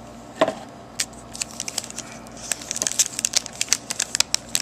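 Box and packaging being handled during an unboxing: a run of short, sharp clicks and crinkles, thickest in the second half.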